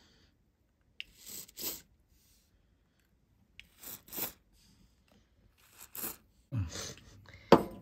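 BW100 contact-restorer aerosol sprayed through its straw nozzle onto a thermostat's circuit-board buttons in short hisses: three quick spurts about a second in, two around four seconds, one more around six. Near the end there is handling noise and one sharp, loud click.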